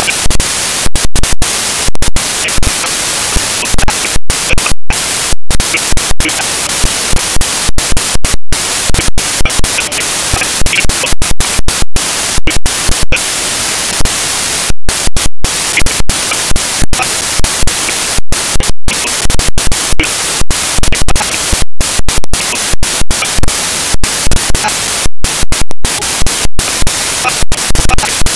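Loud harsh static hiss from a corrupted recording, dropping out to silence for split seconds many times at irregular moments.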